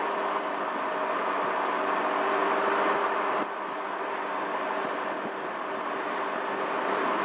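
Honda Helix CN250 scooter's single-cylinder engine running steadily at cruising speed, heard from the rider's seat along with wind and road noise. The sound drops slightly in loudness about halfway through.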